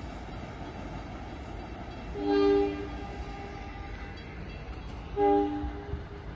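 Horn of an approaching NJ Transit train sounding two short blasts about three seconds apart, each a chord of steady notes. Under the horn is the train's steady low rumble.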